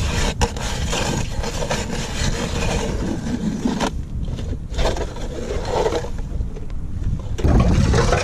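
Strike Master Lazer 8-inch hand auger being cranked through lake ice: its twin stainless steel blades scrape and grind, crunching up ice shavings, and it cuts smoothly. The sound gets somewhat louder near the end.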